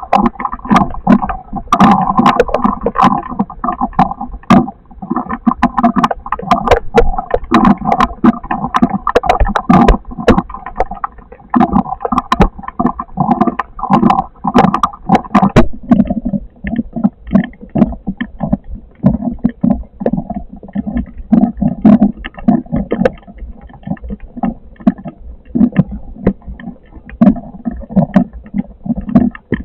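Storm noise: gusting wind buffeting the microphone, with many sharp hits of rain or hail throughout. It eases a little about halfway through.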